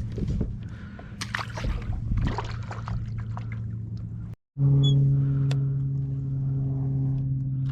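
Water splashing and small knocks around a fishing kayak over a steady low hum. After an abrupt cut about four and a half seconds in, the hum continues louder and steadier.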